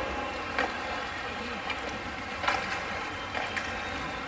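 Ice hockey play in a rink: a steady hiss of skating with three sharp knocks spread through, the kind made by sticks, puck and boards.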